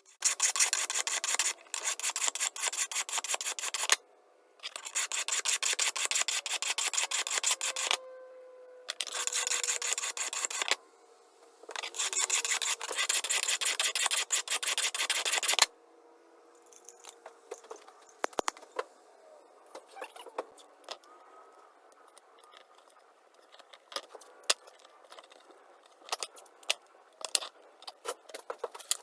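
Hard abrasive scrubbing on the metal of antique sheep shears, in four bursts of a few seconds each with short breaks between. After that come scattered light clicks and taps.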